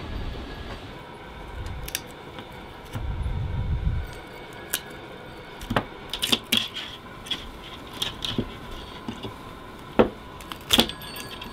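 Poultry shears snipping through a plucked chicken's leg joints to take off the feet: a run of sharp clicks and crunching snaps, the two loudest near the end. A low rumble fills the first few seconds.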